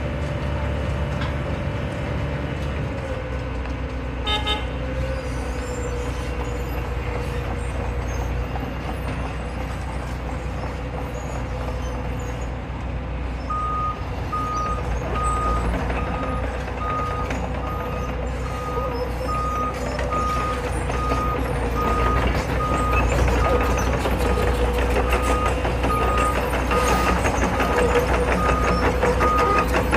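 Heavy diesel road-milling equipment running steadily. A short horn toot sounds about four seconds in. From about halfway a reversing alarm beeps at an even pace, a little over once a second.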